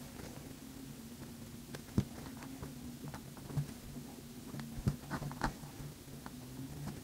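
Light ticks and soft rustles of hand-sewing, as a needle and thread are worked through cotton fabric and the cloth is handled. A few sharper taps come about two seconds and five seconds in, over a steady low hum.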